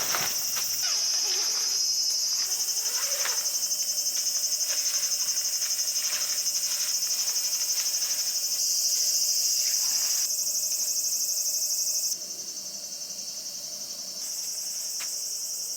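Chorus of insects trilling steadily in a high, shrill register. Its loudness jumps abruptly up and down a few times.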